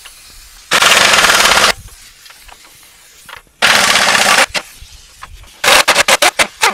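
Pneumatic impact wrench hammering the leaf-spring U-bolt nuts loose: two runs of about a second each, then a string of short quick bursts near the end as the trigger is blipped.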